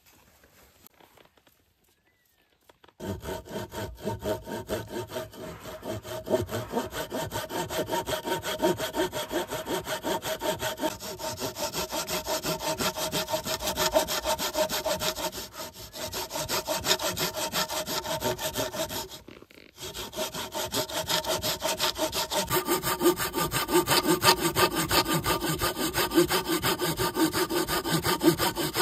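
A saw cutting through wood in quick, even strokes. It starts about three seconds in and pauses briefly twice.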